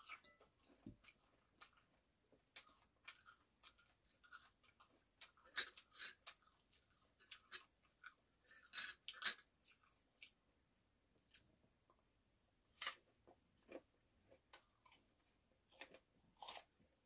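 Close-up chewing of sliced persimmon: irregular soft mouth smacks and crunches, with the loudest cluster about nine seconds in.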